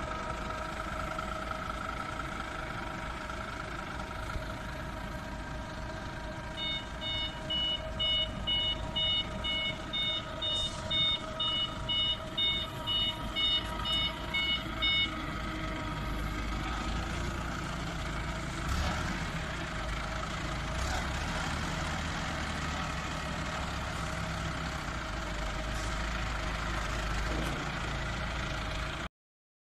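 Forklift engine running steadily while the truck carries a loaded pallet. From about seven seconds in, a high beeping alarm sounds about twice a second for some eight seconds, typical of a forklift's reversing alarm.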